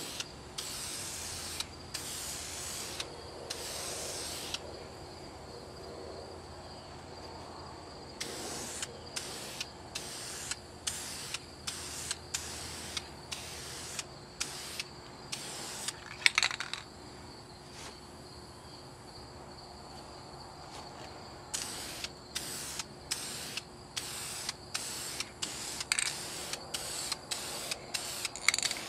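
Aerosol can of Krylon Fusion satin spray paint hissing as it sprays. There are a few longer sprays at first, then many short bursts, about two a second. A single sharp click is the loudest sound, about halfway through.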